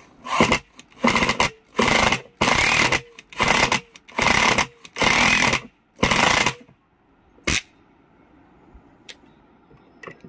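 DCA APL8 electric impact screwdriver driving a screw into a block of wood in short trigger bursts, about eight in a row, then one brief pulse about seven and a half seconds in.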